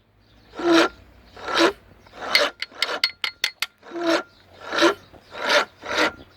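Repeated rasping, scraping strokes, about one a second, with a few small clicks between them about halfway through.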